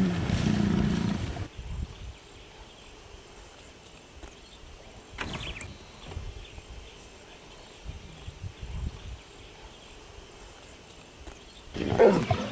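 Lions vocalizing at close range: a low growl that stops about a second and a half in, a few faint low grunts in the middle, and a louder call near the end, which the watchers take for the lioness calling her cubs.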